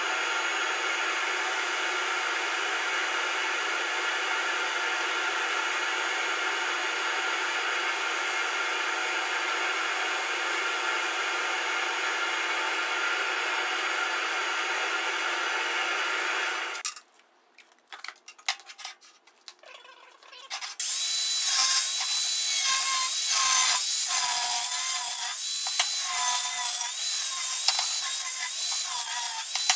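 A power tool motor running steadily, cutting off sharply partway through, a few clicks and knocks, then a power tool running again, louder, with its speed wavering.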